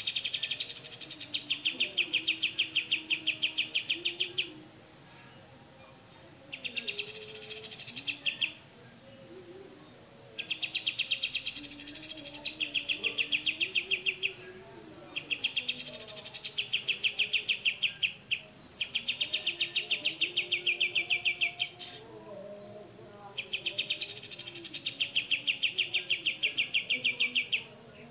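Cucak jenggot (grey-cheeked bulbul) giving its harsh buzzing 'besetan' rattle: about seven bouts of fast, even pulses, each two to four seconds long, with short pauses between. A steady high-pitched tone sounds beneath it.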